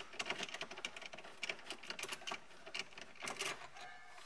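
Socket ratchet clicking in quick runs of strokes as an 8 mm radio-bracket bolt is backed out.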